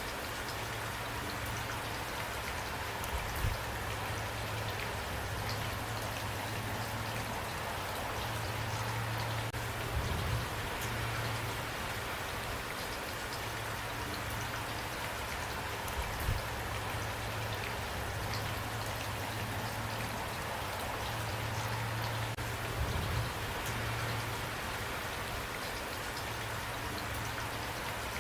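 Steady heavy rain falling, an even wash of drops with a low rumble beneath. A few louder, heavier drop impacts stand out about four times.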